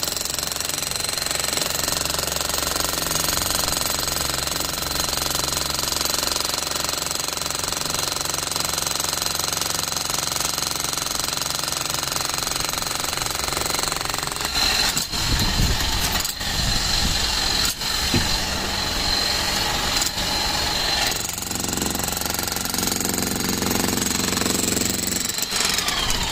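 Bosch GSH 11 E corded electric demolition hammer chiselling into concrete, hammering continuously with a few brief stops and restarts in the second half.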